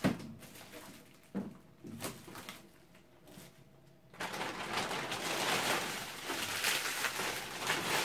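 A few knocks as frozen food is moved about in a freezer drawer, then, about four seconds in, loud, steady rustling and crinkling of a plastic bag as frozen items are pushed into it.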